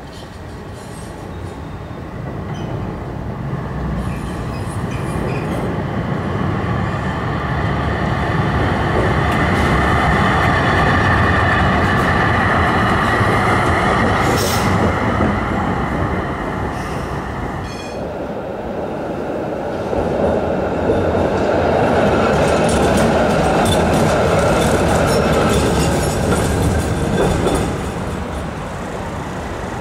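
City trams running on street track. One tram builds up and passes close by, a rumble with a high whine from the wheels and running gear. After a sudden break, a second tram comes on loudly and fades near the end.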